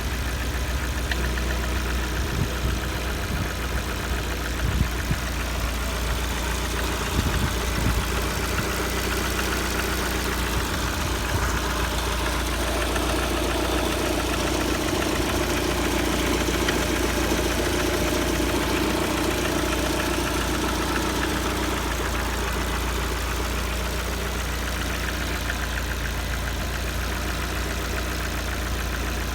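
Lada Kalina's 1.4-litre four-cylinder engine idling with a knock, warmed to about 70 degrees; the owner wonders whether it calls for a major overhaul. Its note rises a little for about ten seconds in the middle.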